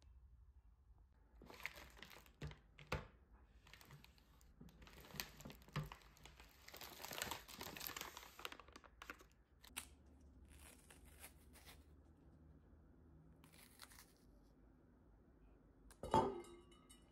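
Groceries being unpacked by hand: plastic packaging rustling and crinkling, with several knocks of items set down on a countertop and a louder knock with a short ring near the end.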